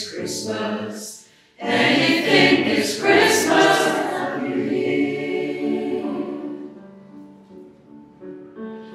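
A choir singing: a short break about a second and a half in, then a phrase that swells and slowly fades to soft held notes.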